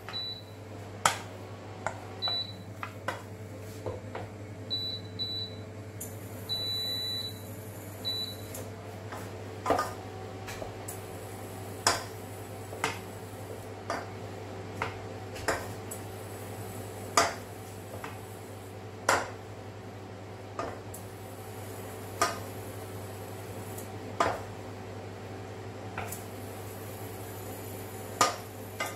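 A wooden spoon stirs thick choux dough in a stainless steel saucepan, knocking against the pan every second or two as the dough is dried over the heat. A few short electronic beeps sound in the first eight seconds, over a steady low hum.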